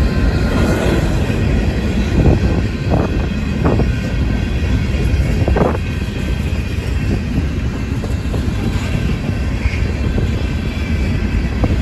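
Freight train cars (covered hoppers and boxcars) rolling past on the rails: a steady rumble with a few short knocks in the first half.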